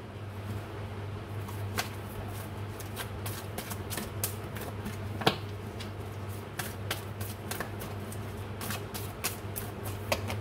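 A deck of oracle cards being shuffled by hand overhand: a run of irregular card clicks and flicks that grows busier about halfway through, over a low steady hum.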